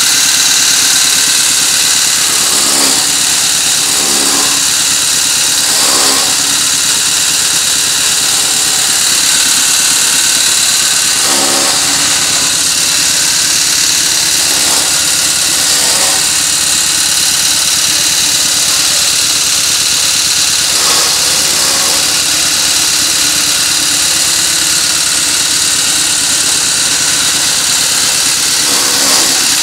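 A generator engine running steadily, powering a small electric chaff cutter whose motor and blades whir at speed. Straw is fed into the cutter's blades near the end.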